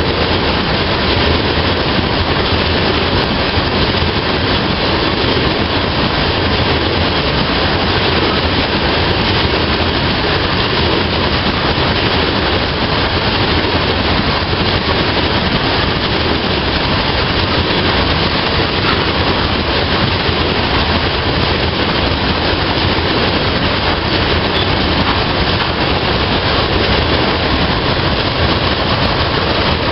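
Freight train of tank cars rolling past: a steady, unbroken noise of steel wheels running on the rails.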